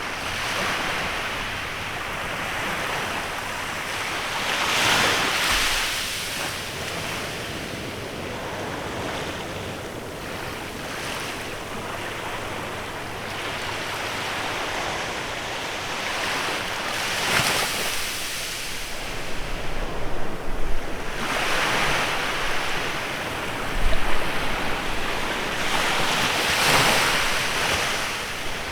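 Small waves breaking and washing up a beach, surging in louder every five or six seconds, with some wind buffeting the microphone.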